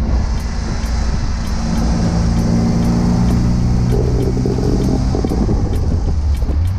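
1974.5 MGB's 1.8-litre four-cylinder engine running while the car is driven, the engine note holding steady under a constant hiss of wind and road noise, its pitch changing a little past five seconds in.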